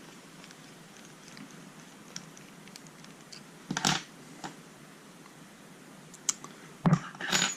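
Small clicks and knocks of a plastic-shelled lockout padlock and hand tools being handled, with a louder clatter about four seconds in and two sharper knocks near the end.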